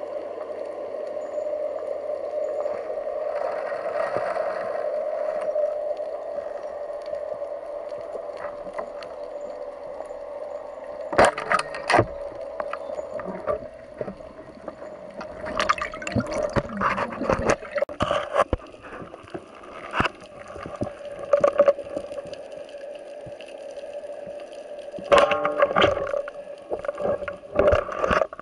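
Underwater sound through an action camera's waterproof housing: a steady muffled hum of the sea. It is broken several times in the second half by clusters of sharp knocks and rustles from gloved hands handling the speargun against the housing.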